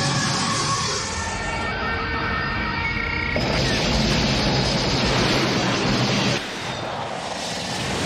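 Film aircraft sound effects: the howling scream of TIE fighters for roughly the first three seconds, then a dense, noisy rush of a propeller seaplane's engine, which drops away and gets quieter about six and a half seconds in.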